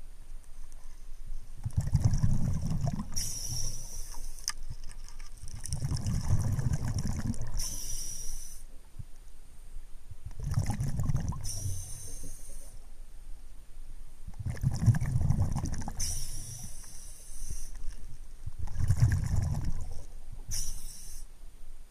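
A scuba diver breathing underwater through a regulator, five breaths about four seconds apart. Each breath is a low burbling rush of exhaust bubbles followed by the short high hiss of the regulator on the inhale.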